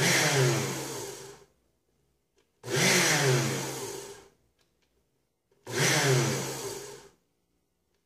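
Oster Core blender motor base, running empty with no jar fitted, pulsed three times. Each burst whirs up in pitch and fades out within about a second and a half.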